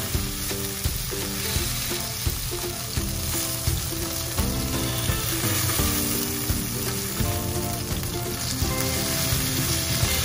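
Marinated chicken pieces sizzling as they shallow-fry in a little oil in a nonstick pan, with sharp clicks as metal tongs turn the pieces and scrape the pan. Quiet background music with held notes plays underneath.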